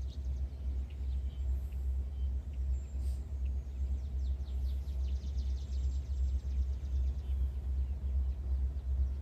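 Outdoor ambience: a steady low rumble, with a small bird's rapid high trill from about halfway through.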